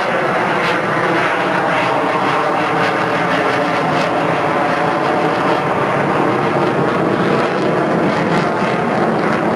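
F/A-18 Hornet fighter's twin General Electric F404 turbofans running loud and steady as the jet pulls a hard, high-G turn overhead, a dense jet roar with its pitch shifting slowly.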